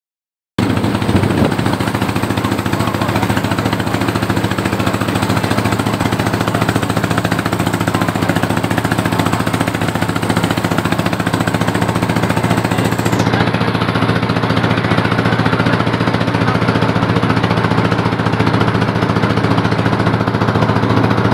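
The inboard engine of a wooden river boat running steadily under way, with water rushing and splashing along the hull.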